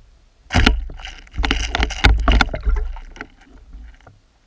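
Underwater knocking, clicking and rushing water heard through a submerged camera's housing as the water around it is churned up. It comes in loud bursts for about three seconds, then dies away.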